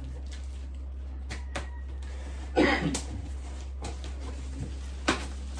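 Boxed desk packaging being handled and unpacked: scattered clicks and knocks, a louder scraping rustle about two and a half seconds in and a sharp tap about five seconds in, over a steady low hum.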